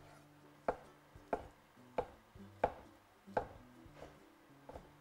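Chef's knife chopping bacon into small cubes on a wooden cutting board: about six even strokes, roughly one every two-thirds of a second.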